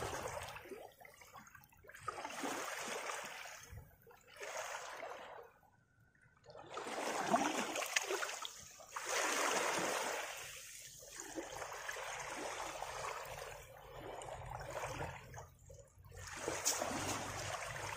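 Small waves lapping at the shoreline, washing up over sand and gravel and trickling back in surges a few seconds apart, with a short lull about six seconds in.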